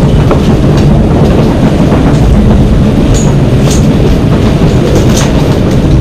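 Gale-force wind and sea heard from inside a sailing catamaran's enclosed helm, a loud, steady low rumble without let-up, with a few faint high clicks around the middle.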